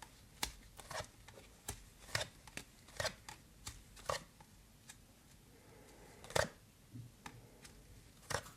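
Tarot cards being handled on a table: a dozen or so light, irregular clicks and taps, the loudest about six seconds in.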